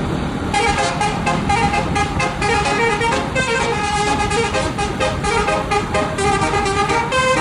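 Basuri telolet horn on a tour bus playing a fast melody of short, quickly changing notes, with a low rumble underneath.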